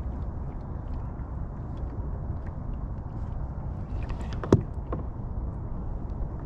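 Steady low rumble of wind and choppy water around a small fishing boat under way, with one sharp knock about four and a half seconds in.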